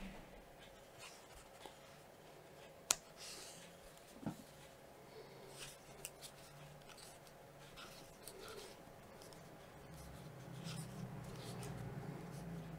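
Faint scratching and rustling of a crochet hook and cotton yarn as single crochet stitches are worked, with small ticks and one sharp click about three seconds in. A low rumble comes in during the last few seconds.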